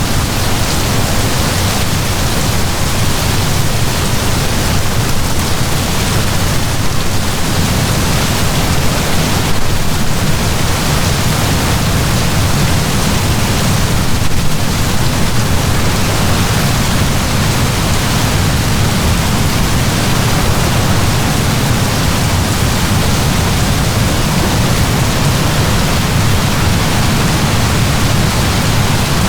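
Heavy rain pouring steadily, a dense even hiss with a low rumble underneath.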